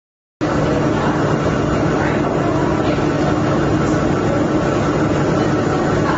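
A steady mechanical drone with a low hum running through it, starting abruptly about half a second in and holding even.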